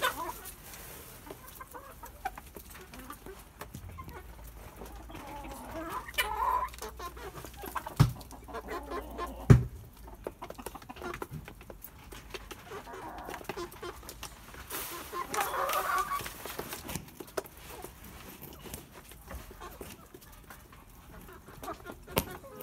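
Domestic hens clucking in low bouts as they peck at food in a tray, with scattered light taps and two sharp knocks in the middle.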